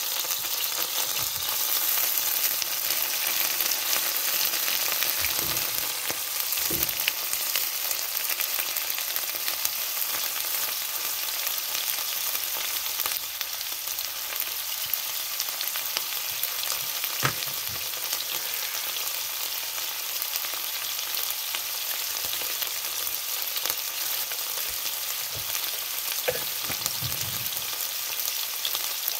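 Meatballs and a slice of bread frying in hot oil in a nonstick pan, sizzling steadily. There are a few light knocks, about three, as a wooden utensil moves the food in the pan.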